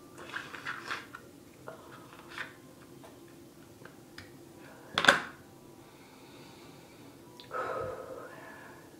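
Handling noises from a plastic dental floss dispenser and floss being pulled out and worked between the fingers: soft rustles and small ticks, one loud sharp snap about five seconds in, and a short louder rustling sound near the end.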